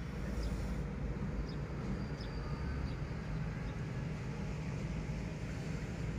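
Dongfeng 8 hp diesel engine of a 500-litre concrete mixer running steadily, a continuous low rumble.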